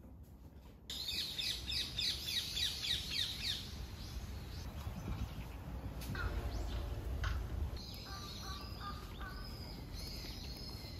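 Small birds calling: a quick run of repeated high chirps, about five a second, starting about a second in and lasting a couple of seconds, then scattered shorter calls near the end, over a low steady rumble.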